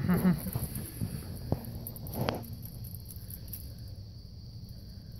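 Yorkie–Chihuahua puppy growling briefly at the start as it plays tug with a lanyard, then faint clicks and rustles of the tug game with one short sound about two seconds in, over a steady hiss.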